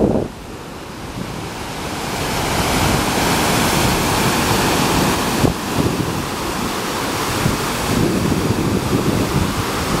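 Indian Ocean surf breaking and washing in, a continuous rushing that swells louder about two seconds in and stays strong, with wind buffeting the microphone underneath.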